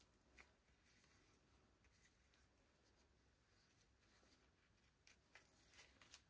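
Near silence, with a few faint, soft rubbing and tapping sounds of a fingertip spreading resin over a clay-covered glass.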